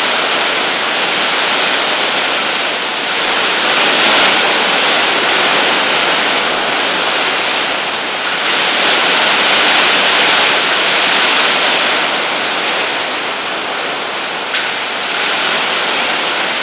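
Hail and wind-driven rain hitting the glass walls and roof of a building, heard from inside: a dense, steady hiss that swells and eases with the gusts, with a single sharp tick near the end.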